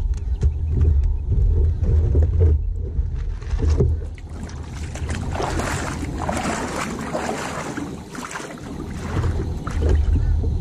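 Plastic kayak being dragged over riverbank gravel and down into the water: a rough, continuous scraping and grinding of the hull on the stones.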